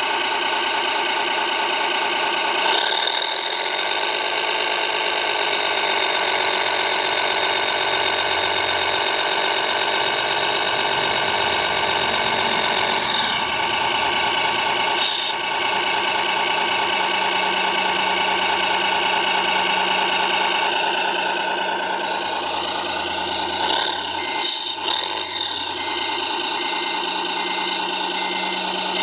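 Radio-controlled model mobile crane and truck at work: a steady, layered mechanical whine of motors and hydraulics with an engine-like hum, its pitch wavering while the load is lowered. About two-thirds through the sound shifts to a steadier, lower hum.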